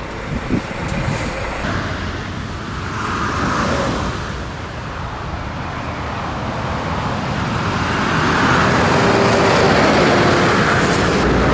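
Scania truck on the road: steady engine and road noise, growing louder about eight seconds in.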